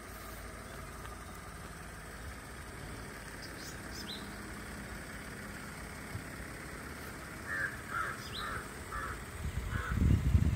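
A crow cawing five times in a row, about two caws a second, over a steady low rumble, with a couple of short high bird chirps before and between. A loud low rumble comes in near the end.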